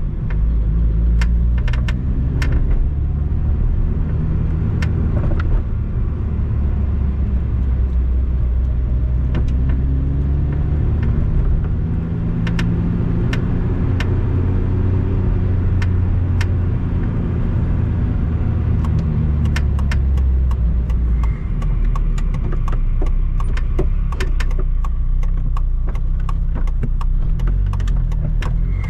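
Inside the cabin of a Lotus sports car while driving: engine and road noise, the engine note rising and falling with speed. Over it come frequent short creaks and clicks, more of a creak than a squeak, thicker in the last third. The owner places this annoying creak in the driver's footwell or left side of the dashboard.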